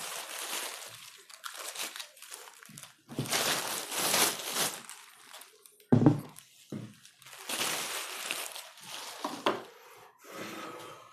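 Plastic packaging bag crinkling and rustling in bursts as a water pump is unwrapped, with one sharp thump about six seconds in.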